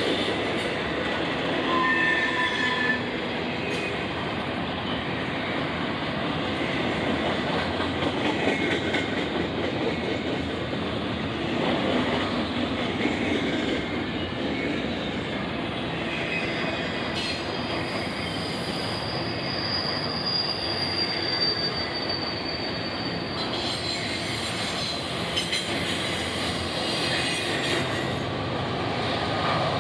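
Intermodal freight train cars rolling past steadily, steel wheels rumbling and clattering on the rail, with a thin high wheel squeal that comes and goes, the longest stretch in the middle.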